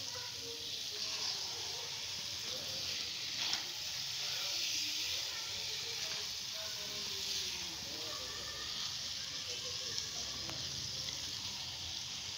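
Boiled urad (mash) dal frying in oil and masala in a pan, a steady sizzle with a few faint knocks of the stirring spoon.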